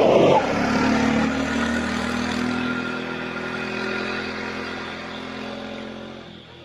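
Bajaj RE auto-rickshaw's single-cylinder engine pulling away, loudest at the start and then fading steadily as it moves off.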